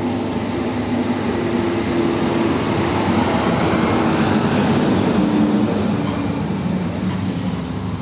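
Diesel engine of a heavy UD Quester tractor truck running as it drives along the road hauling a trailer, with a steady rumble of engine and tyres in traffic.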